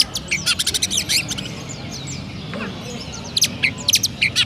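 Oriental magpie-robin (kacer) singing in sparrow-like style: two bursts of rapid, high chirping notes, one at the start and one near the end.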